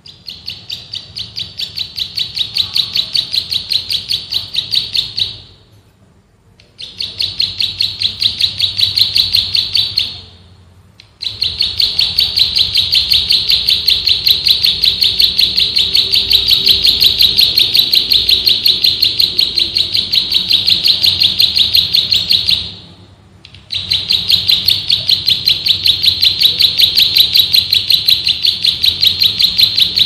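Prenjak sawah (plain prinia) singing its fast drilling song: a rapid, even string of sharp, high notes. It comes in long runs broken by brief pauses about five, ten and twenty-three seconds in, and the first runs build up in loudness.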